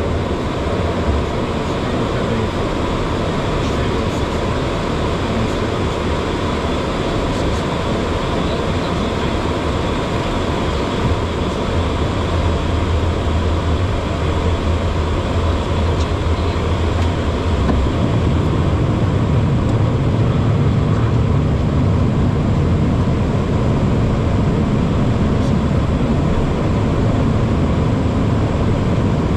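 Steady in-flight cockpit noise of a HondaJet on approach: rushing airflow and the hum of its GE Honda HF120 turbofan engines, with a thin steady tone. The low rumble grows a little louder and deeper about two-thirds of the way through.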